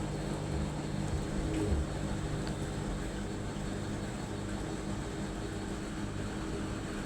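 Steady background hum with a low drone and faint hiss, no distinct event standing out.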